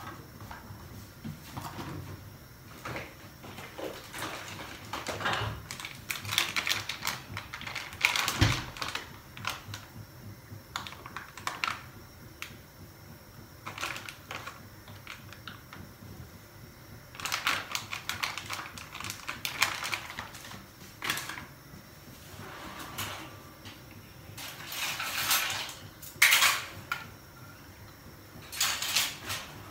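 Kitchen handling sounds: irregular clicks and knocks of bowls and utensils on a stone counter, with several bursts of crinkling from a plastic food packet. Near the end, a utensil drawer is pulled open and steel spoons clatter.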